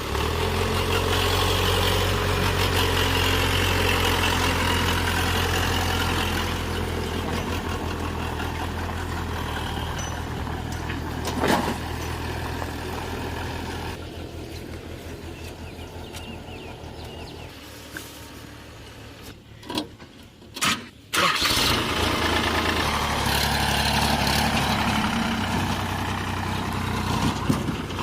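Heavy diesel engines of working machinery running with a steady low hum. The sound drops quieter about halfway through, with a few sharp knocks, then grows louder again near the end.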